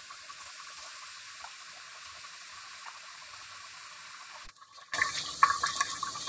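Boondi, drops of gram-flour batter, sizzling in hot oil in a steel karahi. A faint hiss cuts out briefly about four and a half seconds in, then comes back as a louder crackling sizzle.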